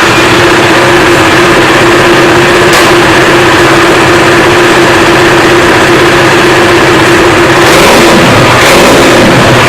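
KTM RC 390's single-cylinder engine running steadily just after starting, with a brief change in pitch near the end. It is run to check whether the windscreen visor still rattles now that rubber pads sit under its nuts.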